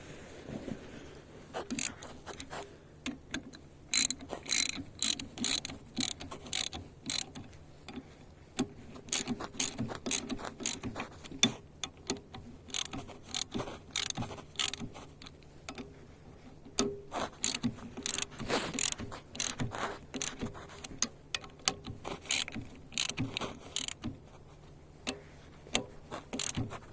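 Ratchet wrench clicking in quick irregular runs as the two screws holding a new electric motor onto the plow's aluminum housing are tightened.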